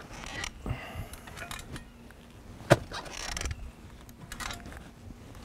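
Clamshell post-hole digger scraping and clinking in a dirt footing hole as loose debris is scooped out, with one sharp click about two and a half seconds in.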